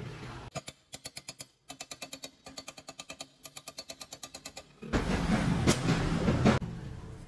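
A hammer tapping quickly and lightly on a small welded steel rod-and-bolt vise, an even run of sharp metallic ticks at about eight a second. Near the end there is a louder, rough clatter that lasts about a second and a half.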